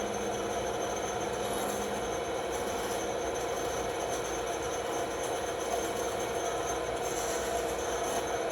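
Bandsaw running steadily while cutting a curved shape out of a wooden board, a constant motor-and-blade whine.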